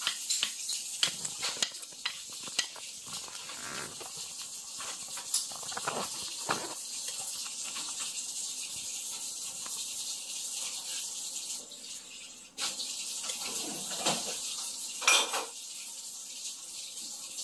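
Plastic spoon and children's training chopsticks clicking and scraping irregularly on a ceramic plate as small black beans are picked up, with one louder clack near the end, over a steady hiss.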